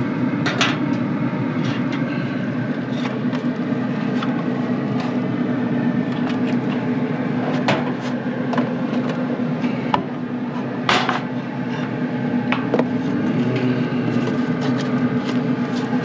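A steady mechanical hum, with a few sharp clicks and scrapes of metal tongs against a foil pan as racks of ribs are lifted out; the loudest click comes about eleven seconds in.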